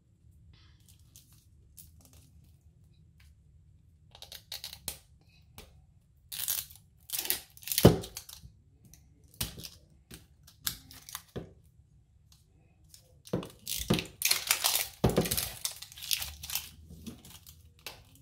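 Outer wrapper layer being peeled and torn off an LOL Surprise toy ball, in irregular tearing and crinkling rips. It starts a few seconds in, with the loudest rip about halfway through and a dense run of tearing near the end.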